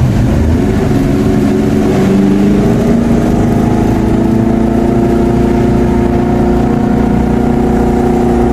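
Motorcycle engine running under way. Its note rises about two seconds in, then holds steady.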